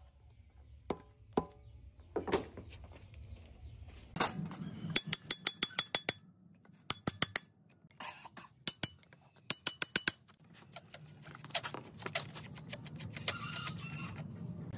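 Quick runs of sharp, ringing metal-on-metal knocks, a steel bar striking the hub nut of a rusted engine belt pulley to free it. Near the end there is lighter clinking of metal tools.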